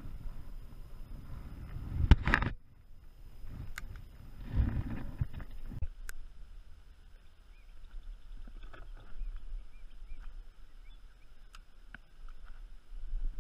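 Knocks and rumbling from a kayak angler handling his rod and gear in the kayak, loudest with a sharp knock about two seconds in. After a sudden change about halfway through, a quieter stretch on the water follows, with a few faint high chirps.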